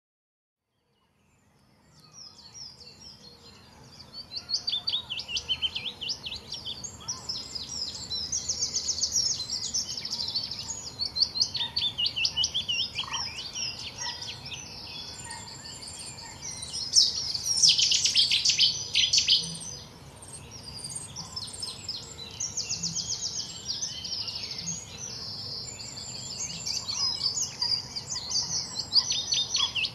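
Several songbirds singing at once, with overlapping chirping and trilling phrases, fading in about two seconds in, over a faint low background rumble.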